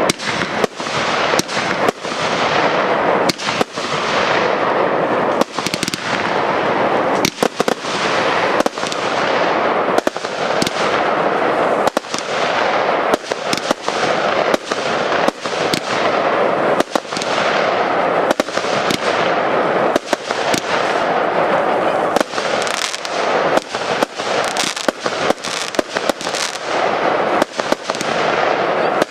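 Fireworks display: a continuous barrage of shells bursting, with dense crackling and many sharp bangs every second over a steady hiss.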